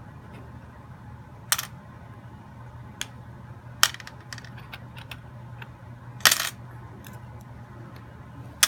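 Small metal objects (bolts, nails, paper clips, safety pins, nuts, washers) dropped one at a time into a box, each landing with a sharp metallic clink, about five loud ones at uneven intervals with lighter clicks between; the loudest comes about six seconds in.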